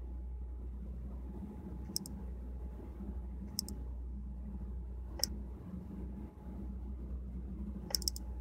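Computer mouse clicking: single clicks about two, three and a half and five seconds in, and a quick double click near the end, over a steady low hum.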